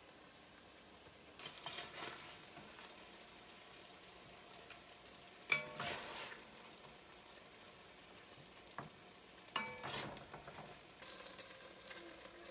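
Food frying quietly in a pan with a soft steady sizzle, stirred several times with a utensil that clinks and scrapes against the pan.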